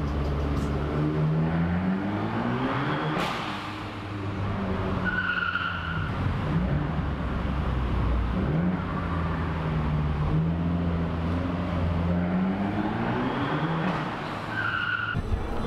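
Car engine heard from inside the cabin, revving up with pitch climbing, dropping off, then climbing again, in a concrete parking garage. Brief tyre squeals on the garage floor about five seconds in and again near the end.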